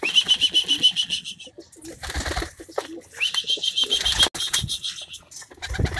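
Two trilled whistle blasts, each over a second long with a quick rise at the start: a pigeon keeper's call to his birds at feeding time. Between and after the blasts, pigeons flap and scuffle.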